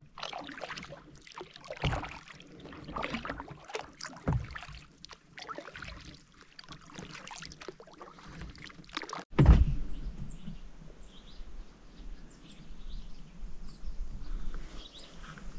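Kayak being paddled: the double-bladed paddle dips and splashes, with water dripping off the blades, in an uneven run of strokes. About nine seconds in, a dull thump, after which the paddling stops and only faint water lapping remains.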